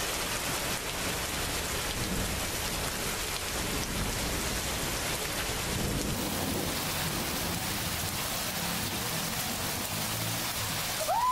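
Steady rain falling, with a low rumble under it for the first six seconds or so. A short rising tone is heard at the very end.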